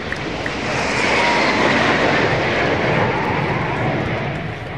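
A formation of BAE Hawk T1 jets flying past overhead: jet engine noise that swells to its loudest in the middle, then fades, with a high whine that falls slightly in pitch as they pass.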